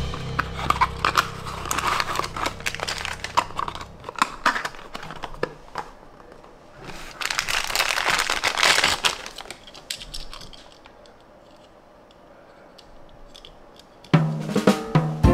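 Unboxing a die-cast toy car: the cardboard box and its packaging clicking, tapping and crinkling in the hands, with a dense crinkling stretch about seven seconds in. Background music fades out near the start and comes back in near the end.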